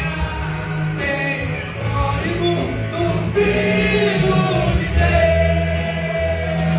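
A man singing a gospel song in held, sliding notes over an instrumental backing with a steady bass.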